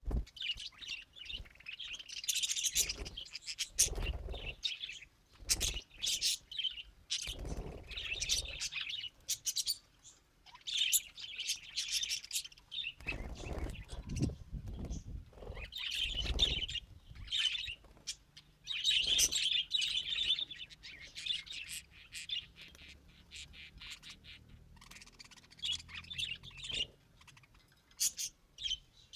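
Pet budgerigar chirping and chattering in bursts of quick, high twitters with short pauses between them, and now and then a brief low rustle or knock.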